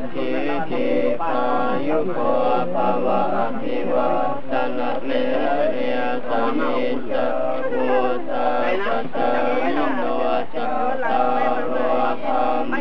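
A group of Theravada Buddhist monks chanting together in unison, male voices holding a continuous chant, the blessing given to alms-givers who kneel before them.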